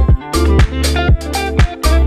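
Background music with a steady dance beat and heavy bass.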